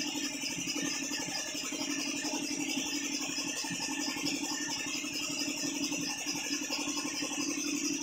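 Steady machine hum with a fast, even rattle running through it.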